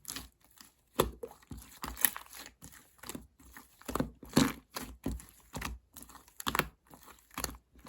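Irregular crinkling and crunching noises, short crackly strokes coming unevenly a few times a second.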